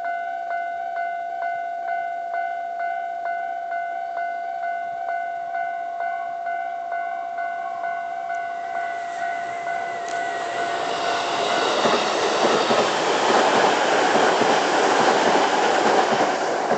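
A JR 253 series electric limited-express train approaches and passes at speed, its rolling noise growing from about halfway through and loudest near the end. Before it arrives, a warning bell rings steadily at about two strokes a second, and it is drowned out once the train is close.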